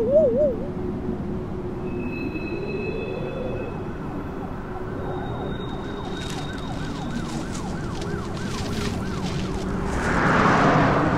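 An emergency-vehicle siren yelping rapidly in the distance over a low, steady city hum. Near the end a rushing noise swells up.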